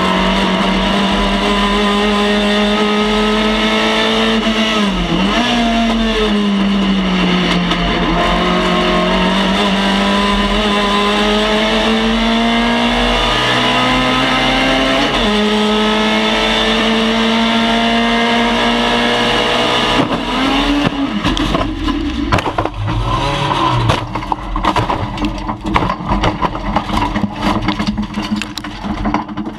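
Car engine running at high revs, its pitch slowly rising and falling with two sudden drops. About two-thirds of the way through it turns choppy and uneven, like repeated throttle blips.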